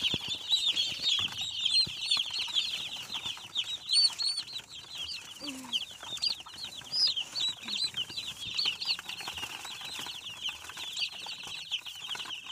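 A crowd of day-old chicks and turkey poults peeping without pause, many short high cheeps overlapping in a dense chorus.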